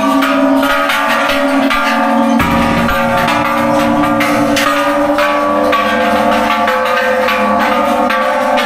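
Temple bells struck one after another, about once a second, their ringing tones overlapping.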